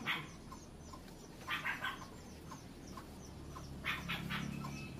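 Short animal calls in three clusters: one at the start, a quick run of several about a second and a half in, and another run about four seconds in.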